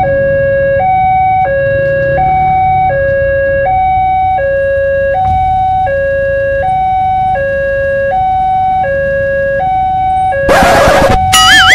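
Railway level-crossing warning alarm: an electronic two-tone signal alternating a higher and a lower note about every 0.7 s, sounding while the barrier booms come down to warn of an approaching train. Near the end a loud hissing burst of noise cuts in for about half a second, followed by a short warbling tone.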